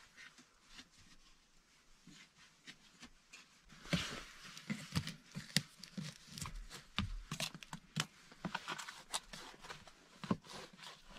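Folding knife blade scraping and picking at a log wall and the moss chinking packed between the logs: a quiet run of small scratches, cracks and rustles that grows louder and busier about four seconds in.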